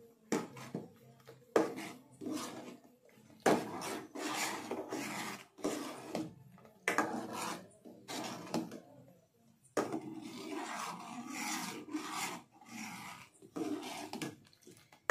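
Steel ladle scraping round the bottom of a metal pan while stirring a thickening milk-and-flour ice cream base, in irregular strokes of about a second each with short pauses. The stirring keeps the mixture from sticking and catching at the bottom.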